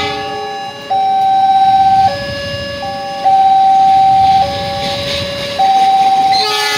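Railway level-crossing warning alarm: an electronic signal alternating between a higher and a lower tone about once a second, over road traffic noise. A train horn starts sounding near the end.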